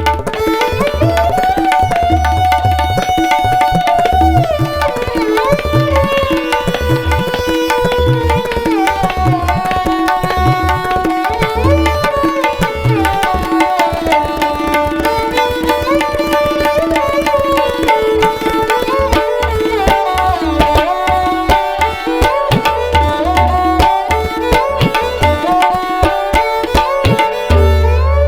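Indian classical-style background music: a tabla rhythm under a gliding melodic line, over a steady drone.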